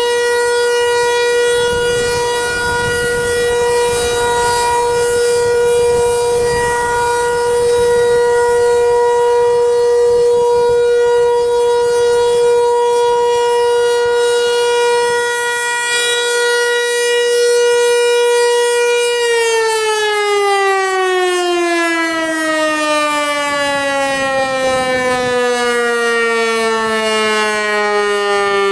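Federal Signal 508 outdoor warning siren sounding a steady alert tone, then winding down about two-thirds of the way through, its pitch falling steadily to the end as the three-minute alert cycle finishes and the rotor slows.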